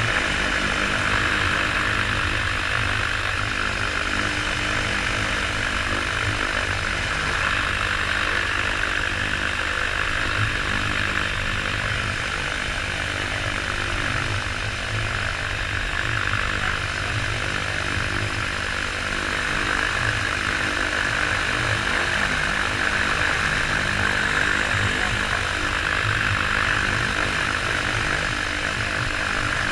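Flex-wing microlight trike's engine and pusher propeller running steadily at low power while the aircraft stands still on the ground.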